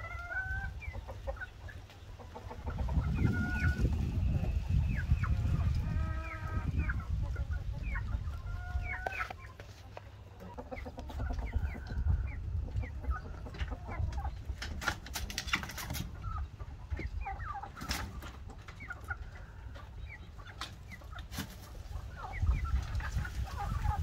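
Chickens clucking in a string of short, repeated calls. A low rumble comes in about three seconds in for several seconds and again right at the end, and a run of sharp clicks sounds about halfway through.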